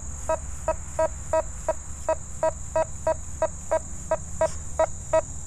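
Nokta Fors Core metal detector giving short beeps of one mid pitch, about three a second, as the coil is swept over a dime lying under a rusty nail with the iron masked out up to 40: the dime is coming through the nail.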